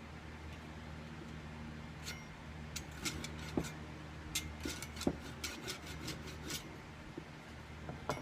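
Scattered light clicks and taps of wood and a hand saw being handled on the bench, irregular and not in a sawing rhythm, over a low steady hum.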